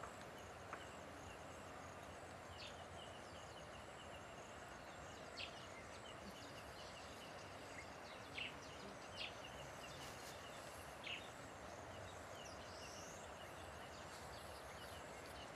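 Quiet outdoor evening ambience: a steady faint hiss with a fast, even high trill running through it and about five short, high chirps spread across it.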